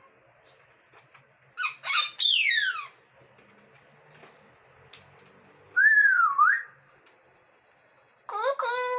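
Pet parrot whistling in three bursts: a quick run of calls about two seconds in that ends in a long falling whistle, a whistle that dips and rises again around six seconds, and a short call near the end.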